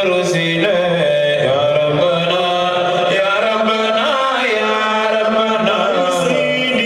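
A man chanting a religious song into a microphone, amplified through a sound system, in long held notes that glide up and down in pitch.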